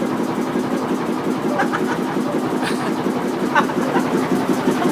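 A boat's engine running steadily at an unchanging pitch.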